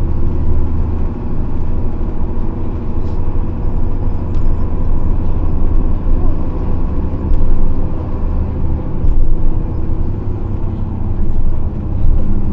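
A 1998 Nissan Diesel KC-RM211GSN city bus running on the road, its FE6E six-cylinder diesel droning steadily with the pitch and loudness shifting as it drives. This is the unusually noisy running sound that marks this particular bus as a 'strange-noise' vehicle.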